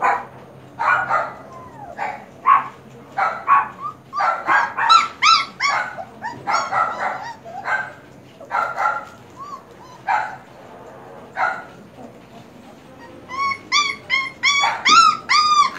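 Young German Shepherd puppies yipping and whining in short, high-pitched calls, several a second, with a quick run of rising-and-falling yelps near the end.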